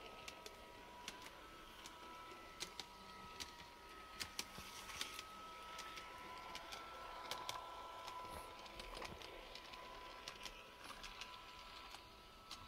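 A small garden-railway locomotive running along outdoor track, its wheels clicking irregularly over the rail joints, with a faint steady whine.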